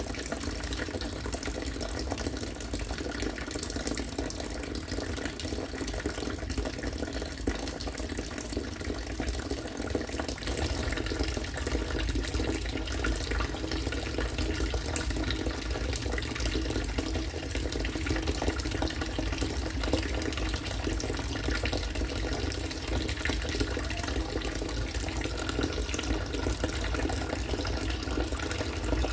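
Harvested rainwater pouring steadily into water, a continuous splashing and gurgling flow like a running tap.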